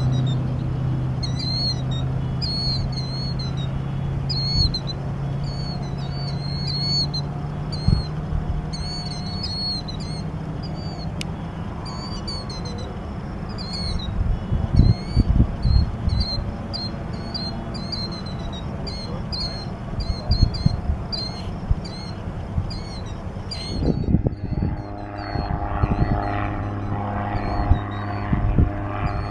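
Distant drone of a Titanium Explorer gyroplane's engine and propeller, fading after several seconds, with birds chirping over it and gusts of wind on the microphone. About six seconds from the end the chirping stops abruptly and a steady engine drone comes back as the gyroplane flies overhead.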